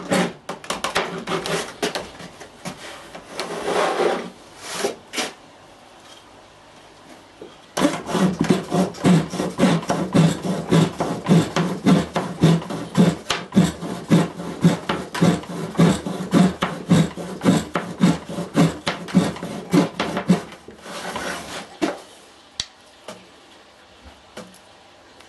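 The Japanese ryoba pull-saw blade of a pedal-powered reciprocating table saw cuts through wood with rapid rasping strokes, several a second. The strokes come in a short burst at the start, pause, and then run long and loud through the middle. A last short burst follows, then only a few scattered knocks near the end.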